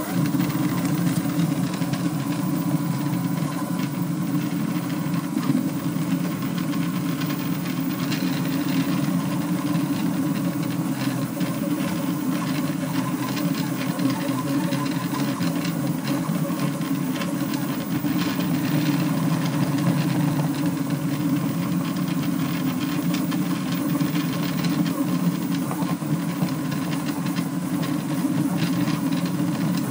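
Delta 3D printer printing at high speed (550 mm/s moves, 4500 acceleration): its stepper motors whir and buzz continuously, the tone flickering rapidly as the effector darts between short moves.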